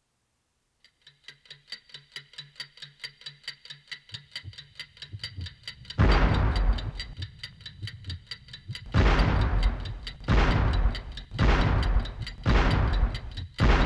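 A clock ticking rapidly and evenly, counting down, joined at first by a low pulsing tone. From about six seconds in, heavy deep booms come roughly once a second over the ticking.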